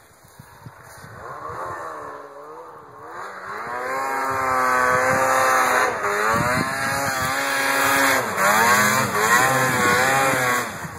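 Snowmobile engine revving up and down in pitch as the sled carves through deep powder. It grows louder from about four seconds in as the sled comes close, then drops near the end.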